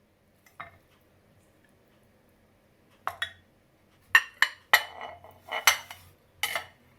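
Spoon clinking and knocking against dishes: one faint knock, then a string of sharp clinks, most of them in the second half.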